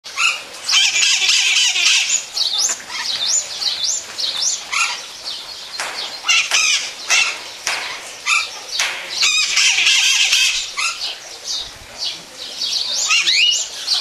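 Two caged conures, a golden conure and a blue-crowned conure, calling to each other with a run of short, high-pitched squawks and chirps that slide up and down in pitch. There are bouts of denser, harsh chatter about a second in and again about two-thirds of the way through.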